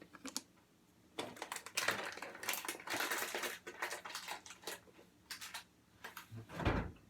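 Crunching, rattling clicks of a tin of Nesquik powder and a spoon being handled, thickest in the first half, with a dull thump near the end.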